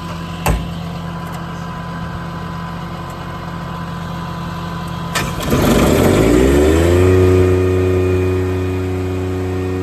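Engine idling steadily, with a sharp click about half a second in. About five seconds in a second machine starts: a click and a rattle, then a rising whine that settles after about a second and a half into a louder steady hum over the idle.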